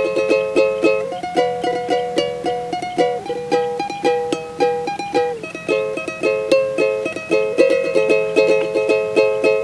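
Instrumental break in a campursari song: quick, steady plucked-string strumming under a held melody line, with no singing.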